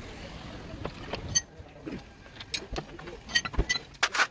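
Steel hand tools (breaker bar, sockets and extensions) clinking and clattering against each other and the paving stones: scattered sharp metal clicks, with a louder, quick rattle near the end.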